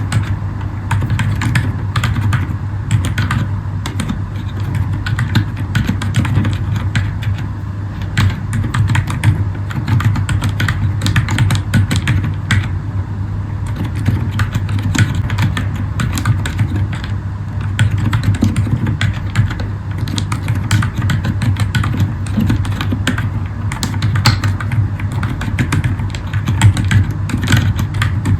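Continuous typing on a Zifriend ZA63 mechanical keyboard with Akko Fairy silent switches: a fast, irregular patter of muted keystrokes. A steady low hum runs underneath.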